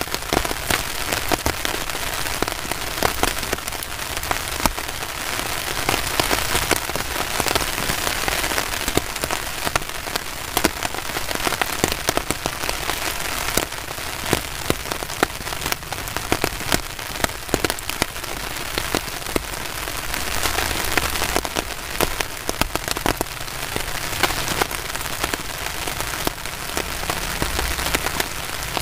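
Steady heavy rain, a dense hiss packed with many sharp taps of drops striking close surfaces.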